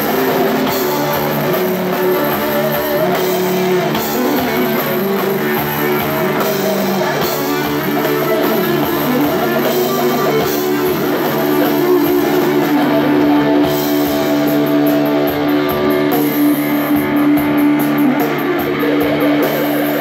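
Live rock band playing: distorted electric guitars and bass over a drum kit, loud and continuous, recorded on a phone from the crowd.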